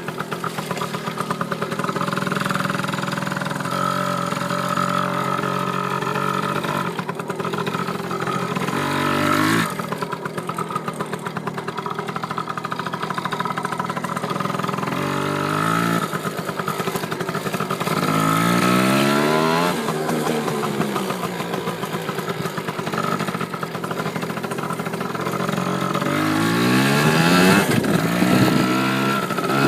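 Dirt bike engine running and revving up several times, its pitch climbing and dropping back between pulls.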